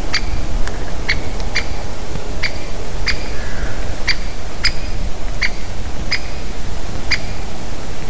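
Great spotted woodpecker giving its sharp single 'kik' call over and over, about ten calls at irregular intervals of around half a second to a second, stopping shortly before the end, over a steady low rumble.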